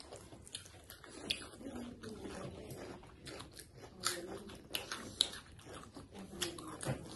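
Quiet chewing of fried instant noodles eaten by hand, with scattered soft clicks and small crunches.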